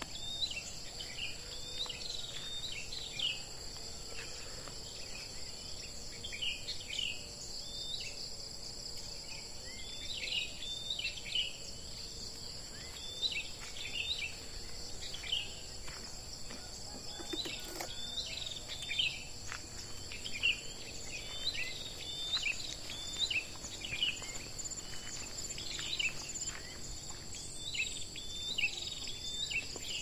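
Forest ambience: a steady, high insect drone with birds chirping over it in many short, falling chirps.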